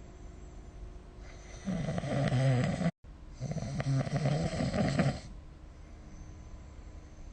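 A sleeping person snoring: one loud, low snore begins about two seconds in and lasts about three and a half seconds, broken by a brief cut-out partway through, between quieter stretches.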